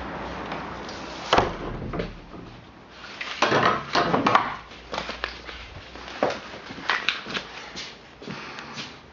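A series of irregular knocks and thumps, the loudest about a second and a half in, with a denser cluster of knocks and rustling around three to four and a half seconds in.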